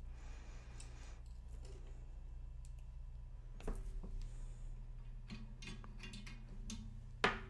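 Small wire cutters snipping and clicking on the thin wires of an LED fairy-light battery pack: scattered short clicks, the sharpest near the end, over a steady low hum.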